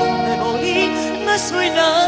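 Serbian folk-pop song played by a live band of accordion, keyboard and electric guitar, with a bending, ornamented melody line.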